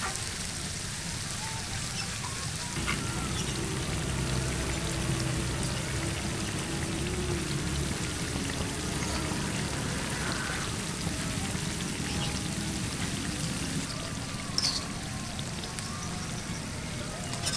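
Bakwan vegetable fritters sizzling in hot oil in a small aluminium wok: a steady, rain-like fizzing. There is a single sharp click near the end.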